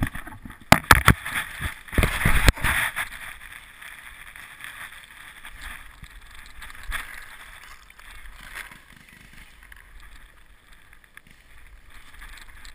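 Rustling and knocking as a camera is handled against a canvas jacket and dry leaves, loud and irregular for about three seconds. Then it settles into faint, steady background noise.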